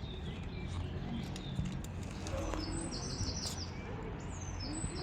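Small birds chirping outdoors: a quick run of short, high notes about three seconds in and a few falling calls near the end, over a steady low rumble of background noise.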